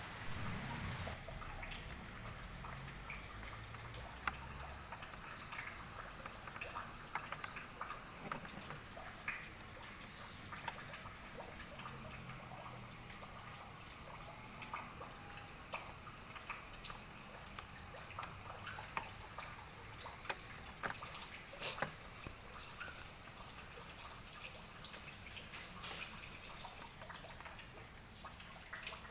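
Scattered light clicks and taps of hands handling wires and small parts, at irregular intervals, over a low hiss.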